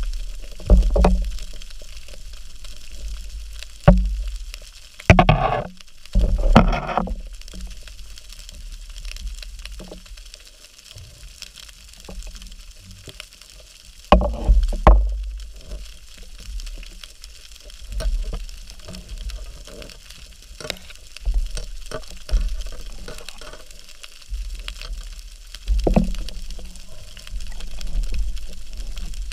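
Underwater water noise picked up by a speargun-mounted action camera: a constant low rumble of moving water and bubbling, with irregular knocks and clicks from the speargun and spear shaft being handled. Louder rushing bursts come around five to seven seconds in and again around fourteen seconds.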